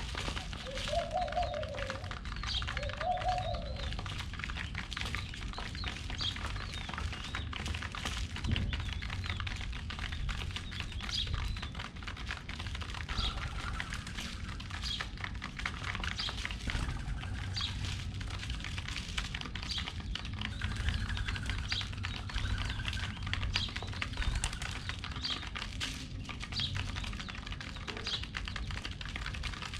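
Pigeons pecking at scattered seeds, a dense rapid tapping of beaks on the ground, with short high bird chirps every second or two. A couple of low cooing notes near the start.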